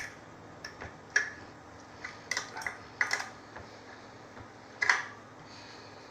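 Sharp metallic clicks and clinks of a crescent wrench on the bicycle's handlebar bolt as it is tightened, coming irregularly, some in quick pairs, the loudest about five seconds in.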